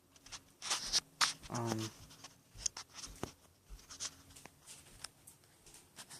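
Irregular rustling and clicking handling noises, with a brief low voice-like sound about a second and a half in.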